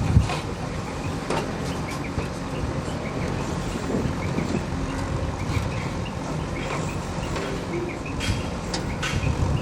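Backhoe loader's diesel engine running steadily with a low rumble, with a few sharp metallic knocks, one near the start and two near the end.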